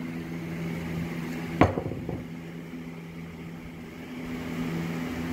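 Steady low hum of a running machine, with a single sharp knock about one and a half seconds in.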